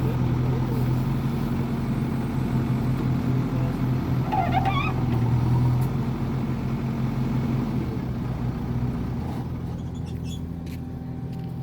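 JCB 3DX backhoe loader's diesel engine running at a steady working speed with a low hum, easing off and getting quieter in the second half.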